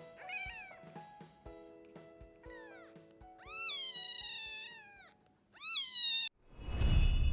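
A kitten mewing about four times in high-pitched cries that rise and then fall, the longest and loudest in the middle, over soft background music. Near the end a whoosh sound effect swells in.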